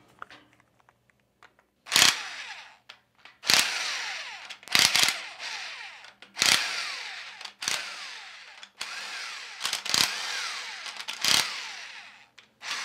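Corded electric impact wrench loosening the cylinder head bolts of a Carrier 06E refrigeration compressor. About nine short bursts, each starting sharply and winding down with a falling whine.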